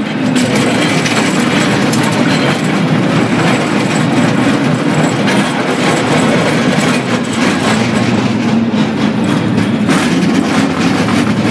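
A San Francisco cable car running on its rails: a steady rumble with frequent rattling clicks.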